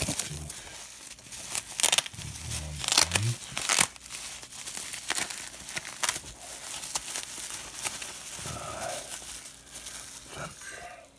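Plastic bubble wrap crinkling and crackling as hands pull it off a small metal cup. There are several sharp, loud crackles in the first four seconds, then steadier, softer rustling.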